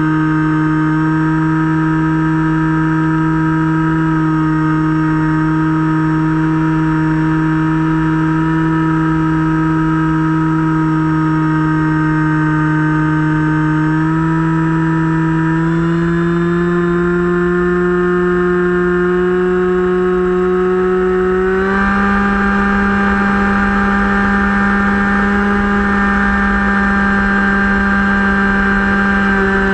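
Finwing Penguin model plane's brushless electric motor and propeller running in flight, heard from on board: a steady buzzing whine over a low rumble of air on the microphone. The pitch climbs gradually about halfway through and then jumps up suddenly about 22 seconds in as the motor speeds up.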